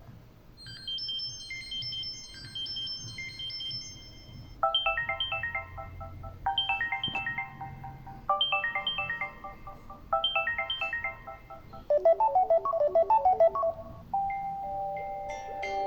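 Samsung Galaxy Xcover2 ringtones playing one after another. First comes a high, light melody of short notes. Then a descending chime phrase repeats four times, about every two seconds. A busier, louder pattern follows, and near the end a new tune begins with a held note.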